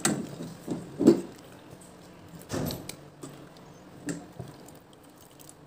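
Metal ladle knocking and scraping against a stainless steel pot while a coconut-milk dessert is stirred. There are about half a dozen separate knocks, the loudest about a second in.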